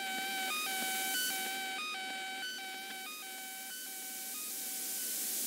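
Repeating electronic tone: a steady pitched note broken by a short blip about every two-thirds of a second.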